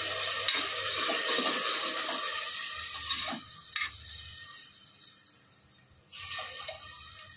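Water poured from a steel bowl into a pressure cooker of frying mutton curry, splashing steadily, then tapering off about halfway through. A spoon clinks against the pot, and a second pour starts abruptly about six seconds in.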